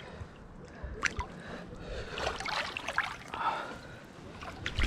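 Shallow creek water sloshing and trickling softly, with a couple of faint knocks about a second in.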